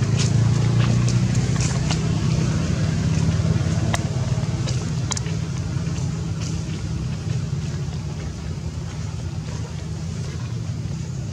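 A steady low rumble that eases off gradually, with a few faint sharp clicks over it.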